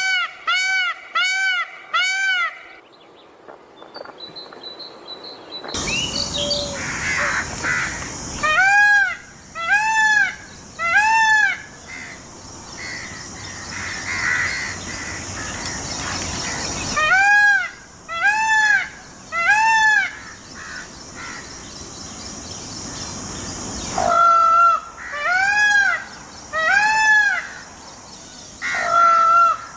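Indian peafowl (peacock) calling: loud, arched honking calls about half a second each, repeated mostly in groups of three. A steady hiss runs under the calls through much of the middle.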